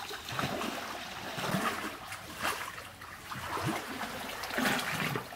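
Pond water splashing and sloshing irregularly around people wading through it as they drag a fishing net, with several louder splashes.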